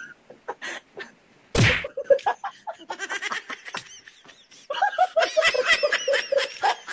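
Two young men laughing hard in quick, choppy bursts, loudest in the second half. About a second and a half in, a pillow dusted with powder is smacked into one player's face with a single soft thump.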